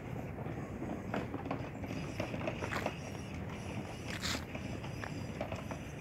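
Footsteps crunching on dry leaf litter and twigs, irregular crisp crackles with a sharper crunch about four seconds in, over a steady low rumble.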